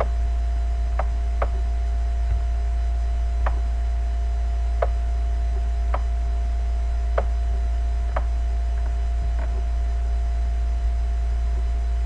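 Steady, loud low electrical mains hum with two faint steady whine tones above it. About ten light clicks at irregular intervals come from the device being used to handwrite on the on-screen slide.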